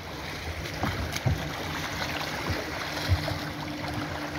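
Small river waves washing over a sandy shore, with a few low thumps. A faint steady hum joins about halfway through.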